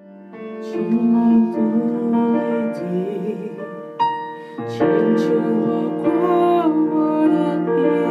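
Piano playing a slow song with a voice singing over it; the music comes in just after a sudden cut, and fuller chords enter about five seconds in.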